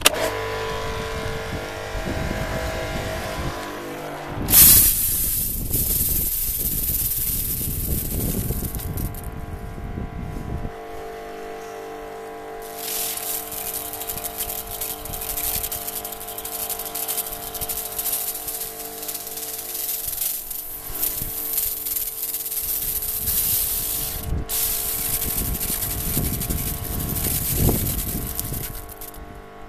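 Kärcher electric pressure washer switched on with a click, its motor and pump running with a steady hum. The lance's water jet hisses in long spells, starting about four seconds in, easing off for a few seconds in the middle and cutting out briefly near the end, as it sprays sheet-metal lathe parts.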